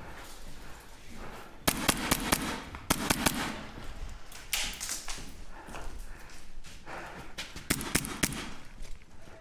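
Airsoft guns firing: sharp cracks in short, quick strings, several groups over a few seconds.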